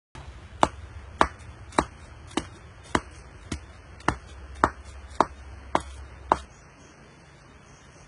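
Regular chopping strikes of a hand tool, about eleven evenly spaced blows a little under two a second, stopping about six and a half seconds in.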